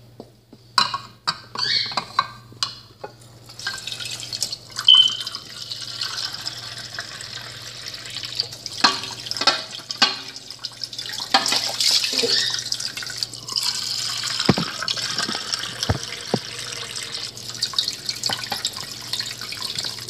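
Kitchen mixer tap running into a small plastic water dish as it is rinsed and refilled, water splashing steadily. There are knocks and clatter as the dish is handled in the first few seconds and again midway.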